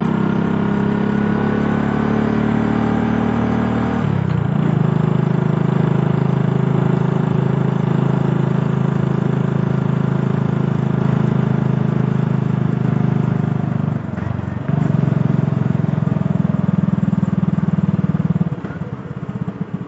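Motorcycle engine running steadily under way, dipping briefly twice as the throttle eases. Near the end it slows and settles to an idle.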